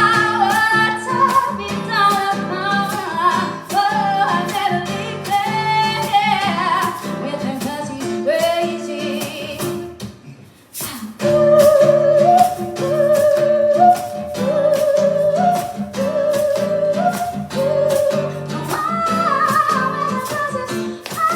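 Live acoustic music: a woman singing a wavering, held melody over strummed guitar chords, with a brief break about ten seconds in before the singing and strumming resume.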